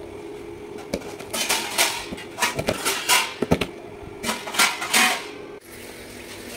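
Kitchen knife slicing a red onion on a plastic cutting board: an irregular run of crisp knife strikes on the board, with fainter strikes after a break about five and a half seconds in.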